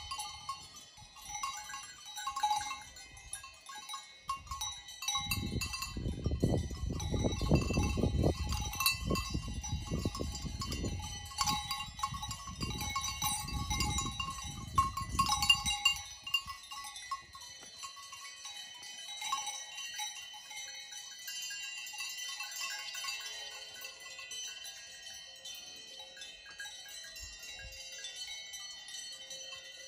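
Several livestock bells (Swiss cowbells) on grazing animals, clanking and ringing irregularly at a few different pitches that overlap. A stretch of louder low rumbling noise runs from about five to sixteen seconds in.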